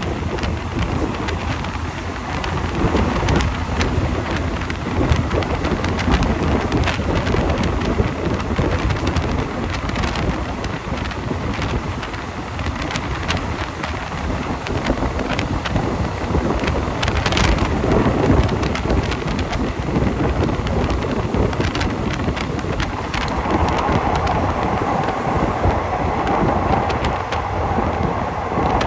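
Passenger train running along the track, heard from an open coach window: a steady rumble of wheels on rails with wind buffeting the microphone and scattered clicks from the track. A steady higher hum joins in about five seconds before the end as the train runs onto the curving elevated track.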